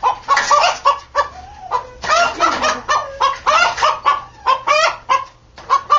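Rooster clucking and squawking in a rapid run of short calls, several a second, some bending up and down in pitch.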